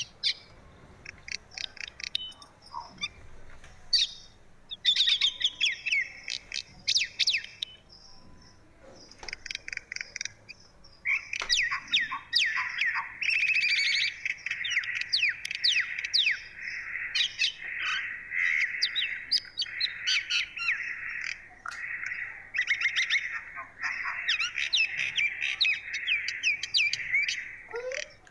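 Birds chirping in quick, overlapping tweets. The calls come in scattered clusters at first, then about eleven seconds in they thicken into a dense, continuous chorus.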